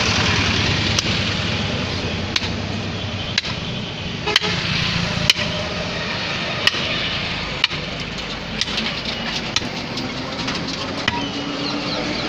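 Butcher's cleaver chopping through beef onto a wooden chopping block: sharp strikes about once a second, lighter and quicker near the end, over steady background noise.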